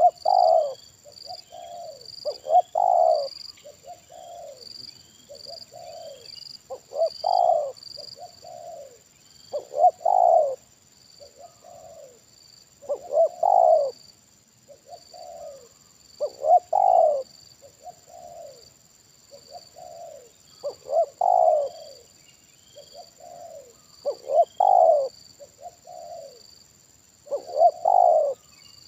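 Spotted doves cooing in a long series of coo phrases: a loud coo every three to four seconds, with softer coos in between.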